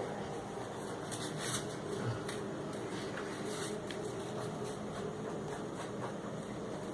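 A steady, low drone with a few held tones. It is an unexplained 'very strange noise' that the recorder likens to a jet turbine but has never heard before.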